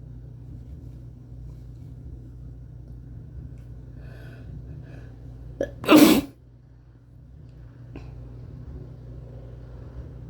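A person sneezes once into cupped hands, a single short burst about six seconds in, with a faint build-up a second or two before it.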